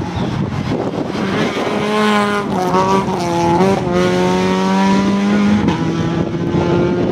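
Opel Adam rally car's engine revving hard as it drives through a stage, with road and tyre noise throughout. From about two seconds in its note rises and falls several times, dropping in steps.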